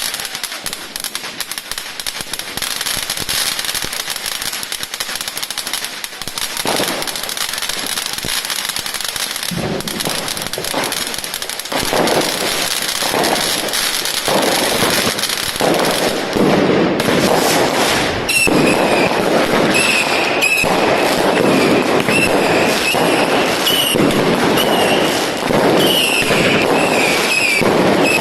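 Consumer fireworks going off without a break, a dense crackle of pops and bursts that grows louder about twelve seconds in. A wavering high whistle joins the crackle for the last third.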